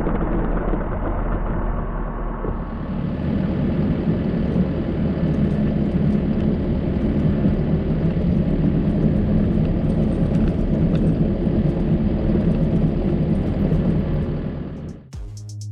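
Kubota SVL97-2 tracked skid steer's diesel engine running steadily. Music with a drum beat comes in near the end.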